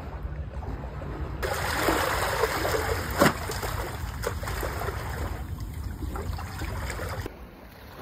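Small sea waves lapping and splashing at the water's edge, over a steady low rumble of wind on the microphone. The splashing grows louder about a second and a half in, with one sharp tick a little later, and drops away near the end.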